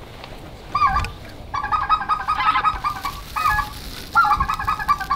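Geese calling: rapid strings of short, high yelping notes in several bursts, the loudest near the end.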